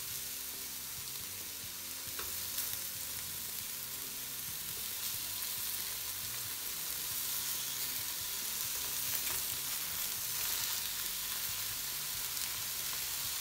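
Caul-fat-wrapped meatballs sizzling on a hot enamel griddle plate as they are laid down one after another, the fat frying in a steady hiss that grows a little louder as more go on.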